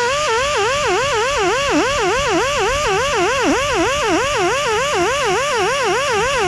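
Grinder smoothing rough welds on steel, its high whine dipping in pitch and recovering about four times a second as it is pressed into the metal in quick strokes, the dips deepest in the middle.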